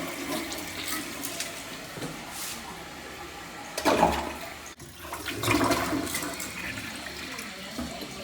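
Toilet flushing: water rushes through the bowl, with a louder surge a little past the middle.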